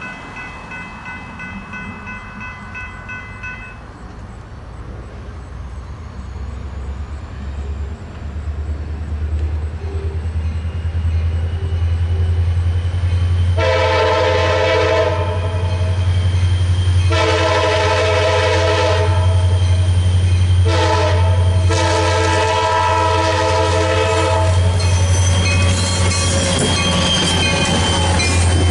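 Grade-crossing bell ringing for the first few seconds, then stopping. Then diesel freight locomotives approaching, their engines rumbling louder and louder, and the lead locomotive's horn sounding the crossing signal: long, long, short, long. Near the end the lead locomotive passes close by with rail and wheel noise.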